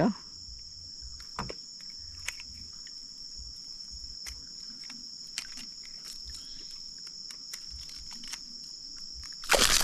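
Insects, crickets or similar, droning steadily at a high pitch, with a few faint clicks. A short loud burst of noise comes near the end.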